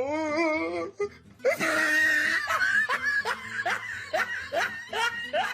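Laughter: a wavering laugh, then after a short pause a run of short rising laughs, about two a second.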